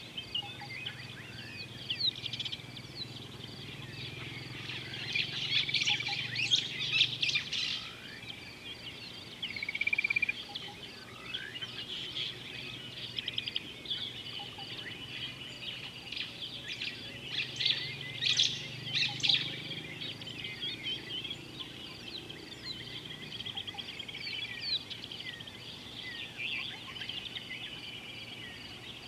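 Many wild birds chirping and calling over one another, short whistles and twitters, busiest in two flurries, about a quarter of the way in and again past the middle.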